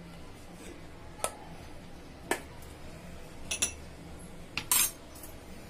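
A few light clicks and taps of steel kitchenware, a small bowl and spoon against a steel thali of flour, about a second apart, the last a short scrape-like clatter. A faint low hum runs underneath.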